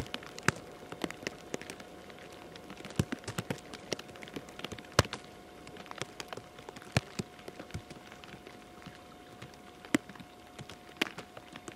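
Falling precipitation striking close to the microphone: scattered sharp taps at irregular intervals, a few a second, some much louder than others, over a faint steady hum.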